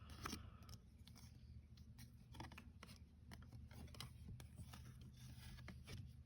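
Faint, scattered soft clicks and scrapes of baseball cards being handled and slid one behind another while going through a freshly opened pack.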